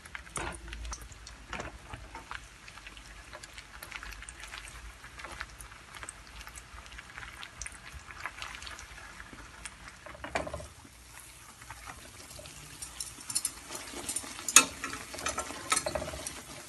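Bread slices frying in ghee on very low heat: a soft, steady sizzle with scattered small pops and crackles. A few louder clicks and one sharp knock come near the end.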